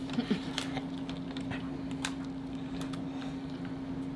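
Quiet eating sounds: scattered light clicks of chewing and of picking meat from a lobster tail shell, over a steady low hum.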